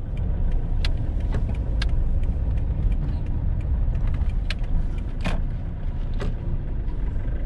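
Car cabin noise while driving: a steady low engine and road rumble, with a few scattered light clicks.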